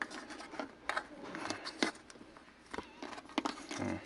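Hand tugging and pressing on a car's plastic rear interior trim panel, giving scattered small clicks, knocks and rubbing sounds as the panel is checked for movement.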